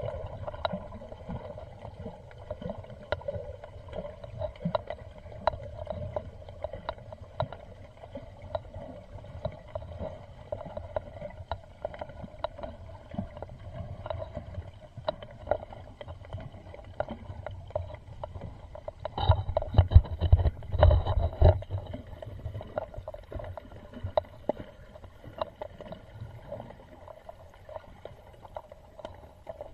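Muffled underwater sound picked up by a camera in the sea: a steady low rumble with many scattered small clicks and crackles, and a louder stretch of low rumbling and knocks about two-thirds of the way through.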